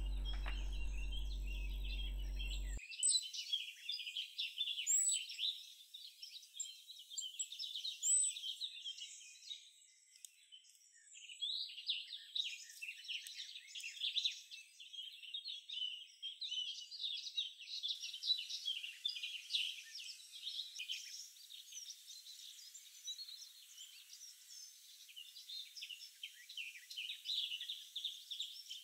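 Goldcrest nestlings begging at the nest: a dense run of very high, rapid, thin cheeps with a short lull about ten seconds in. A low steady hum cuts off about three seconds in.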